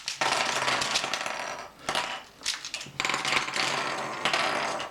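Plastic Rubik's Cube pieces clicking and clattering as the cube is taken apart piece by piece, in two long spells with a short pause about two seconds in.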